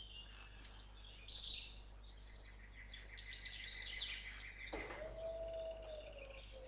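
Faint forest birdsong with chirps and trills, then a long whistle that slowly falls in pitch near the end.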